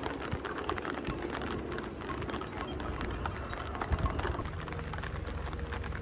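Footsteps and the patter of rain on wet pavement: many irregular short taps. A low steady hum joins about four and a half seconds in.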